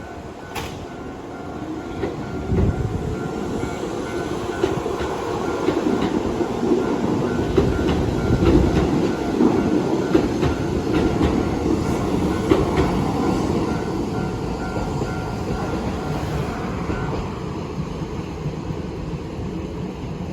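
Keisei 3500 series train passing over a level crossing, its wheels clacking over the rail joints, loudest about halfway through. The crossing's warning bell rings in a steady repeating pattern and stops near the end.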